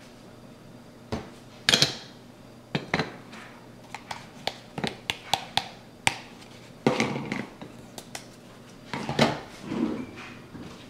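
Clinks and taps of metal and plastic as ground coffee is tipped from a plastic container through a dosing funnel into an espresso portafilter. A quick run of small taps comes in the middle, with a few louder clatters.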